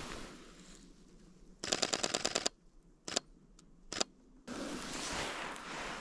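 Sony A7IV mechanical shutter firing a rapid burst, about ten clicks a second for just under a second, then two single shutter clicks. Near the end, footsteps crunch in snow.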